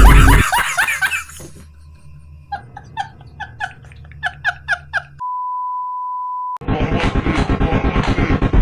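A steady single-pitch bleep tone, like a censor beep, lasting about a second and a half. Before it comes a run of about eight short chirpy blips, each falling in pitch. Loud music cuts off about half a second in and starts again after the bleep.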